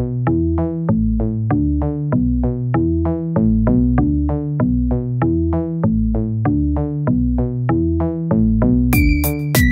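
Background electronic music: a fast, evenly repeating synthesizer note pattern over a bass line, with bright percussion hits coming in about a second before the end.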